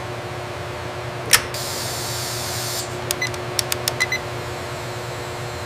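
Steady machinery hum with a single tone in it. About a second in there is a sharp click, then about a second of hissing, then a quick run of small clicks and ticks.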